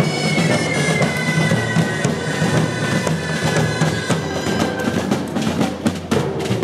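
Street percussion band beating bass drums and large kettle-shaped drums in a steady beat. A high whistling tone slowly falls in pitch over the first few seconds, and sharper hits crowd in near the end.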